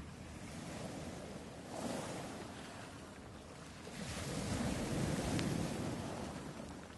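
Sea surf rushing onto a beach, swelling about two seconds in and again, louder, from about four to six seconds in.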